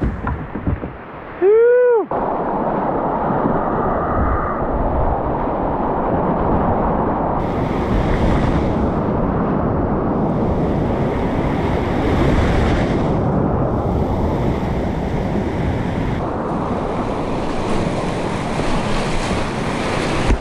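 Whitewater rapids of a river in flood rushing steadily around a kayak, heard from the boat, with wind buffeting the microphone. About a second and a half in there is a brief, loud tone that rises and falls in pitch.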